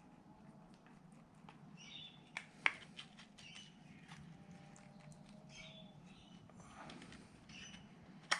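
Faint scratching and light ticking of a stir stick scraping and tapping inside a small cup of two-pack epoxy glue while it is mixed, with a couple of sharper clicks a little under three seconds in and one near the end.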